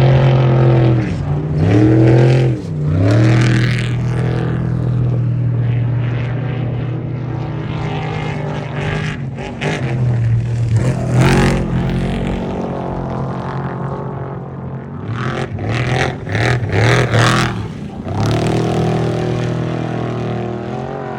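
Off-road race truck engine running at high revs, its pitch dropping and climbing back twice a couple of seconds in, then several quick throttle lifts and stabs near the end, with a rush of noise about halfway through.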